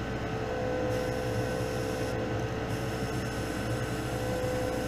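Spray booth exhaust fan running with a steady low hum, under the hiss of an airbrush spraying bone-coloured paint. The hiss starts about a second in and breaks off briefly near the middle as the trigger is released.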